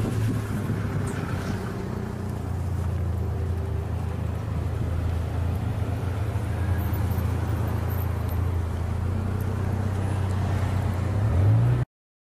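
Car engine and road noise heard from inside the cabin, a steady low drone. Near the end it rises briefly in pitch, then cuts off suddenly.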